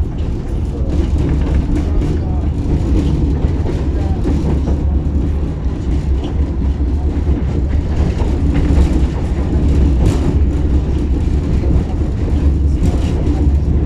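Tatra T6B5 tram running between stops: a steady low rumble of wheels on the rails and running gear, with faint knocks scattered through it.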